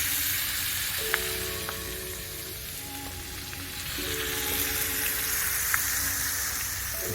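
Fish frying in hot oil in a pan, a steady crackling sizzle.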